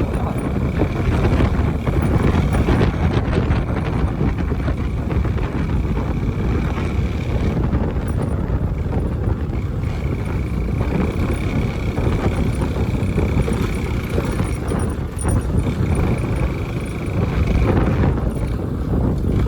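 Motorcycle riding, picked up by a helmet-mounted phone: a steady rumble of engine, road and wind noise, with a thin high whine that drops out for a couple of stretches and stops near the end.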